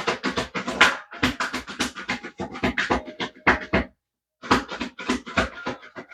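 Tarot cards being shuffled by hand: a rapid run of papery flicks and slaps, pausing briefly after about four seconds and then going on.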